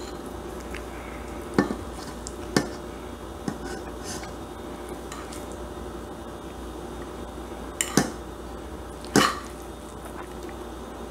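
Metal fork clinking and scraping against a plate as shepherd's pie is scooped up, in about five sharp clicks, the loudest two near the end. A low steady hum runs underneath.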